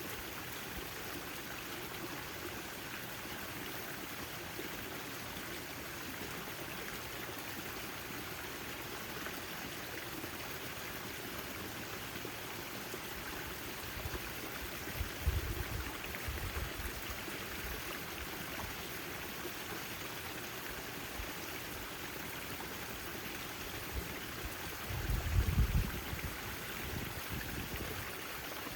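Backyard fountain's water splashing and trickling steadily. Two brief low rumbles come through, one about halfway through and one near the end.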